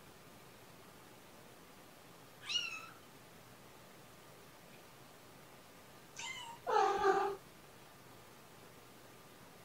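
Cats meowing: a short high-pitched mew about two and a half seconds in, then another high mew and, right after it, a louder, lower meow about seven seconds in.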